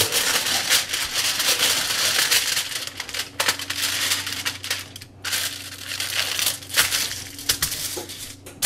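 Sheet of aluminum foil crinkling as it is doubled over and pressed flat by hand on a countertop. A dense run of crackles thins to separate rustles after about three seconds.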